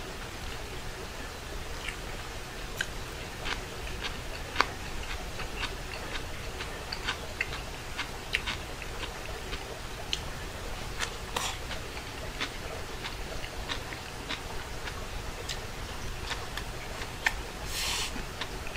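Eating with chopsticks from ceramic bowls: soft, irregularly spaced clicks of chopsticks against the bowls and chewing of rice and crisp pickled vegetables, with a slightly longer rushing sound twice, once midway and once near the end.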